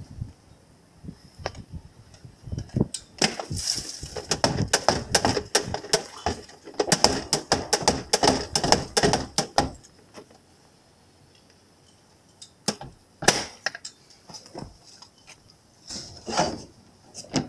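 Small pieces of debris tipped from a plastic container into an empty plastic wheeled trash bin: a rapid clatter of hits on the bin's bottom, lasting several seconds. A single knock follows, then a heavier thump near the end from the bin's lid.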